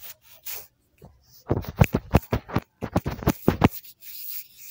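Handling noise: an irregular run of rustles and bumps against the microphone, then a short hiss near the end.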